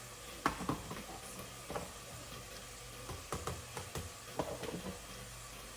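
Whole spices, coriander seeds among them, frying in a pan with a faint sizzle while a spatula stirs them, giving scattered light taps and scrapes against the pan.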